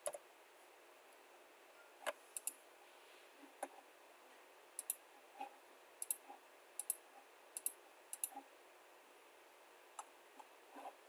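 Computer keyboard keys and mouse buttons clicking: a dozen or so scattered sharp clicks, several of them in quick pairs, over a faint steady room background.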